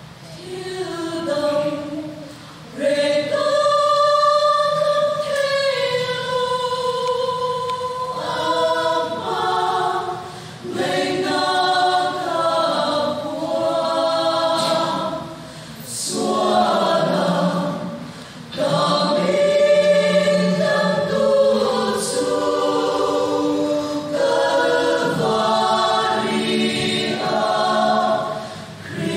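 Women's choir singing a hymn in parts, with short breaks between phrases.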